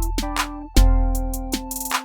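Background music with a steady beat: electronic drums over deep sustained bass notes.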